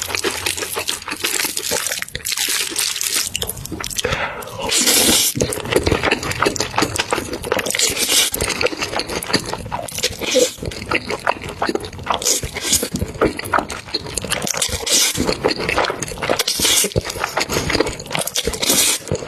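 Close-miked eating sounds of spicy food: continuous wet chewing and mouth clicks, broken by short slurps about every two to four seconds.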